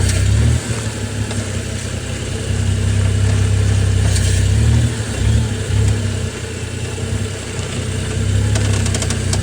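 Car engine running with a low, steady hum that swells and dips a few times, louder from about two and a half seconds in and again near the end. This is the noise that persists with the car jacked up, though its bushings and joints are not broken.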